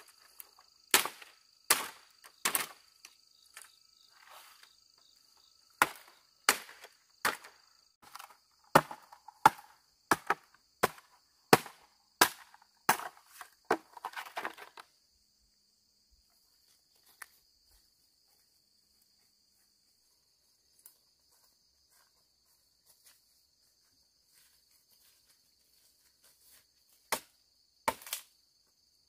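A series of sharp, evenly spaced strikes, about one every two-thirds of a second, that stop about halfway through, with two or three more near the end. A steady high insect buzz runs underneath.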